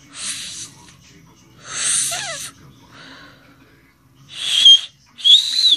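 A person blowing a finger whistle in short breathy puffs of air; the first few are mostly hiss, and the last two, the loudest, catch a shrill whistle tone, the final one arching up and back down.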